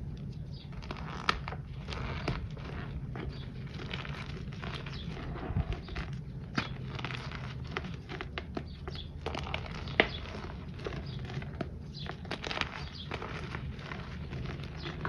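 Bare hands crushing and crumbling handmade reformed powder chunks: a dense run of crisp, crunchy crackles, with a few sharper snaps as pieces break, about a second in, midway and near the two-thirds mark.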